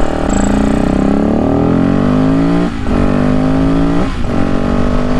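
Yamaha WR250X supermoto's single-cylinder engine accelerating, its pitch rising, then breaking off briefly twice for upshifts, once about midway and once near the end.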